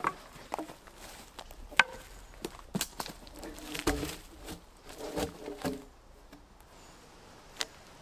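Rotten logs being cleared by hand: several sharp cracks and knocks of wood, the loudest about two seconds in, and a rougher stretch of scraping and rustling of bark and dry leaf litter in the middle.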